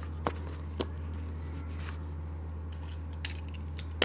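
Quiet handling of paper game cards on a carpet floor: two light taps near the start and a few soft clicks near the end, over a steady low hum.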